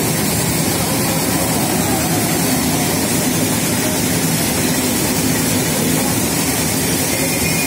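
Steam hissing and rushing steadily from a standing Nilgiri Mountain Railway steam locomotive.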